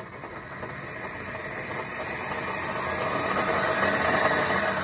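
Craftsman 10-inch variable-speed bandsaw running with no blade fitted. Its motor and belt drive whine louder and higher as the speed knob is turned up, peaking about four seconds in, then begin to drop back near the end.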